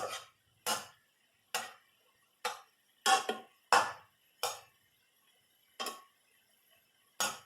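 A metal utensil striking and clacking against a Blue Diamond ceramic nonstick frying pan while turning browning beef, about ten sharp knocks at an uneven pace, two of them close together a little after three seconds in.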